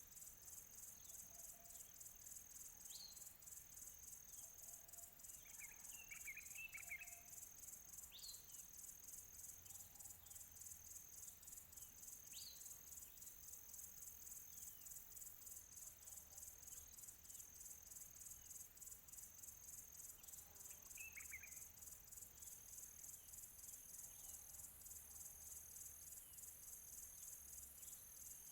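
Faint crickets chirping in a steady, fast-pulsing trill. Short bird calls are scattered over it, with a brief cluster of twittering notes about six seconds in and again about twenty-one seconds in.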